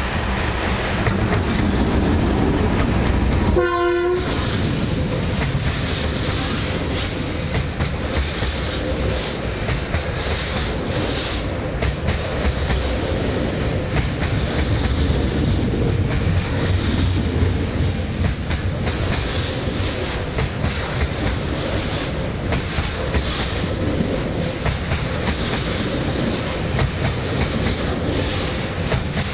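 DF4DD diesel locomotive hauling a coal train past at close range, its engine running loudly, with one short horn blast about four seconds in. Then the long line of hopper wagons rolls by, the wheels clacking steadily over the rail joints.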